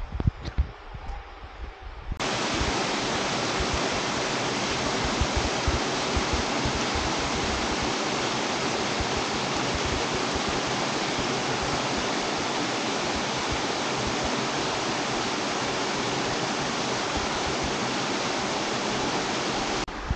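Small cascade in a mountain stream, water spilling over rock steps in a steady, even rush that starts abruptly about two seconds in. Before that, a few soft thumps are heard.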